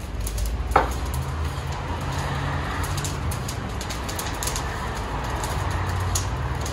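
Steady low rumble of road traffic, with scattered light clicks and one short falling chirp about a second in.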